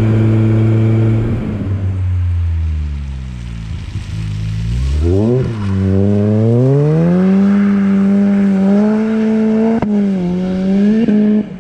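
Supercharged Opel Speedster engine under load. The revs hold high, then fall away over a few seconds, blip sharply and climb back to a high, steady pitch with small dips. A single sharp crack comes near the end, and the engine note cuts off abruptly just before the end.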